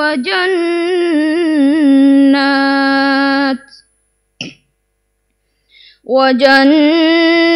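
A man's voice chanting Qur'an recitation in a melodic style, drawing out and ornamenting the end of a phrase for about three and a half seconds. Then a pause of about two seconds with one short breath-like sound, and the chant starts again on the next phrase near the end.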